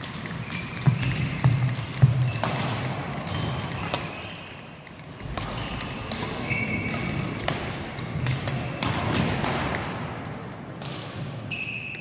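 Badminton rackets striking a shuttlecock in a rally, a run of sharp taps, with sneakers briefly squeaking and footfalls thudding on the wooden court floor.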